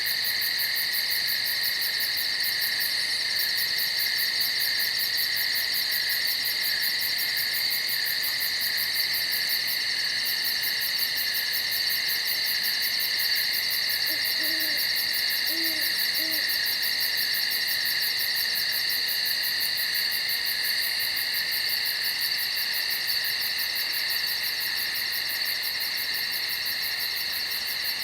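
Steady, dense chorus of night insects, a high shrill trill with fast, even pulsing. About halfway through, an owl hoots three short low notes, faintly under the insects.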